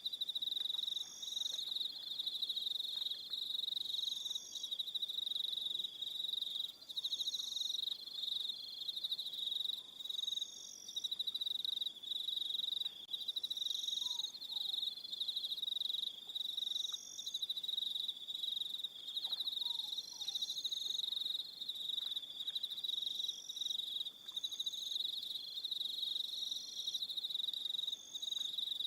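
Crickets trilling steadily in an evening chorus, with a higher chirp repeating about every one and a half seconds over the steady trill.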